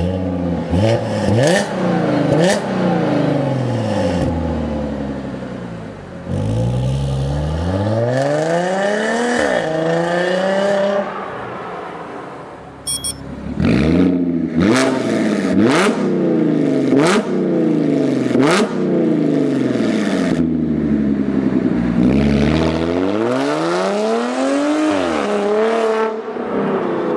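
Audi B8 S4's supercharged 3.0 V6 revved at a standstill through an Armytrix valved cat-back exhaust: quick blips and two long sweeps up and back down. The exhaust valves are in stock mode at first and switch to race mode about halfway through, after which several blips come with sharp cracks.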